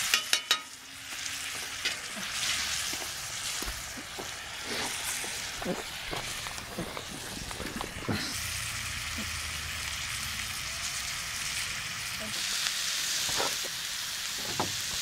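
Vegetables and turkey kielbasa sizzling steadily in a cast iron skillet over a campfire, with scattered small pops. A few sharp knocks of a wooden spatula against the pan come right at the start.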